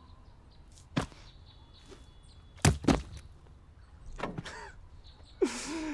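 Three sharp thumps: one about a second in, then two close together just under two seconds later.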